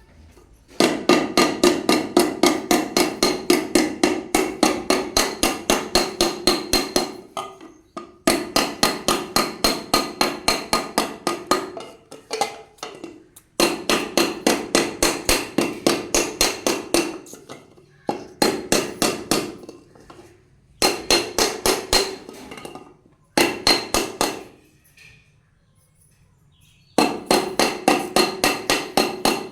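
A hammer beating ringing metal in rapid, even runs of about four strikes a second. Each run lasts a few seconds before a short pause.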